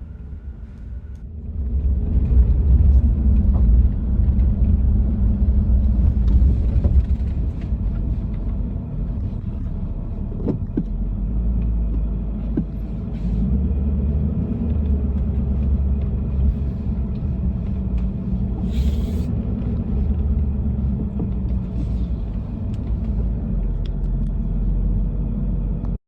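Car driving slowly across a wet grass field, a low steady rumble of engine and tyres that grows louder about two seconds in.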